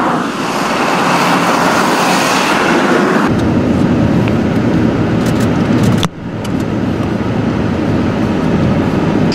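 Vehicles running: first a convoy of vans and an armoured vehicle on a road, then a car driving along a rough dirt track, heard from inside the cabin with a heavier low rumble. The sound cuts abruptly about three seconds in and again about six seconds in.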